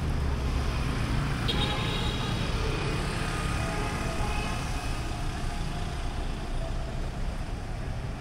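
Steady city street traffic: motorbike and car engines running close by, heard from a moving cyclo rickshaw. A high, even tone comes in about a second and a half in and fades out over the next few seconds.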